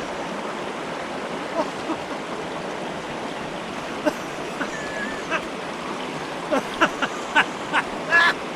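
Mountain stream running steadily, with a short rising chirp about five seconds in and a run of sharp clicks and knocks near the end.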